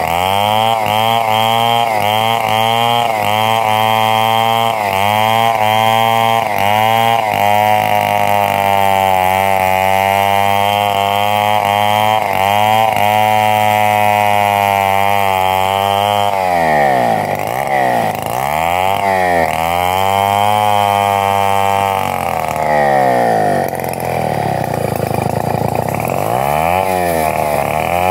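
Stihl chainsaw ripping lengthwise along a dry, very hard rambutan log. The engine runs loaded, its pitch dipping in a quick regular pulse at first, then steadier. From about halfway on its revs fall and rise repeatedly as the saw works the cut and is eased out.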